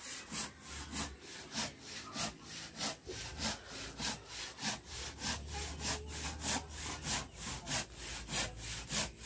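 Hand saw cutting through kakawate (Gliricidia) wood in steady back-and-forth strokes, about three a second.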